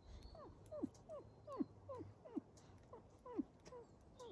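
Gray wolf whining: a quick run of short, steeply falling whimpers, about two or three a second.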